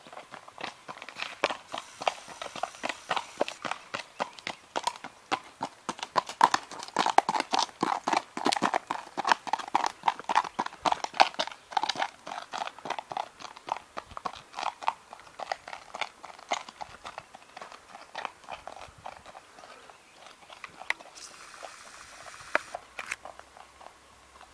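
A horse's hooves striking the ground in a steady, rhythmic run of many beats. It grows louder in the middle stretch and fades somewhat toward the end.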